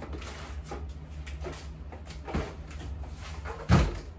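Cardboard boxes of baby wipes being handled and set down on a closet floor, with a dull thump about two and a half seconds in and a louder thump near the end.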